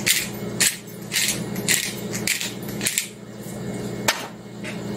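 Disposable black pepper grinder twisted over a pot of stew, each turn giving a short crunchy grind, about two a second for some three seconds. Near the end of the strokes the grinder is set down on the counter with a sharp knock.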